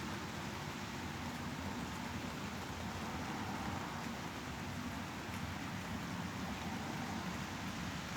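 Steady white noise for sleep: an even, unchanging hiss with a fuller low rumble underneath.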